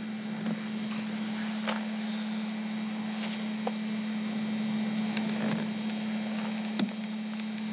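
Steady low hum with hiss, and a few faint, short crunches or clicks scattered through it.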